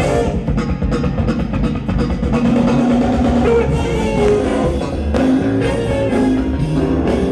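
Live R&B/funk band playing an instrumental passage: electric guitar lines over bass and drum kit.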